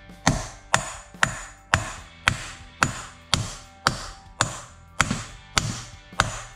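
Steady hammer taps, about two a second, each with a brief metallic ring: a ball-peen hammer strikes a tool set on the center of the cap, driving it onto a 3000GT VR4 / Dodge Stealth center differential housing until it is fully seated.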